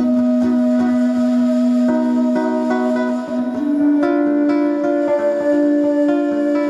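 Acoustic music: a plucked string instrument playing with long held melody notes over it, one note sustained for about three seconds before the line rises.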